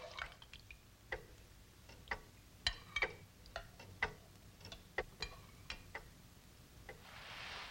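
Long-case pendulum clock ticking slowly, about two ticks a second, with a soft hiss near the end.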